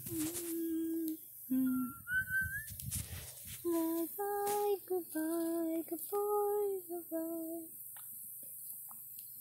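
A child humming a slow tune in long held notes, with one brief higher rising note about two seconds in; the humming stops about eight seconds in.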